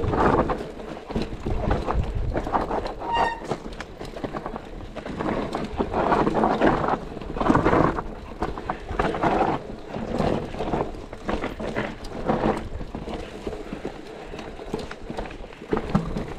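Mountain bike riding down a rough enduro trail: tyres rolling over dirt and rocks while the bike rattles and clatters in uneven bursts. A brief high squeak comes about three seconds in.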